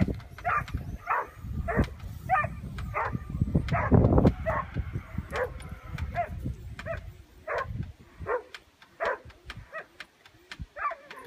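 A dog yipping over and over in high, excited barks, about one and a half a second, steady through the whole stretch. A low rumble sits under the first eight seconds.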